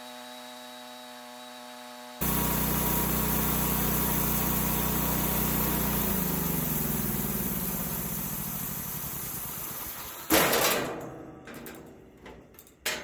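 A steady hum for about two seconds, then a sawmill's gasoline engine running loud; about six seconds in it slows and dies down as it runs out of gas. A loud sudden bang follows about ten seconds in with clattering and a second sharp bang near the end, as the band blade pops off.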